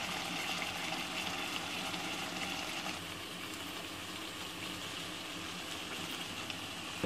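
Mutton and cabbage curry simmering in a pot, a steady bubbling hiss that drops a little about three seconds in.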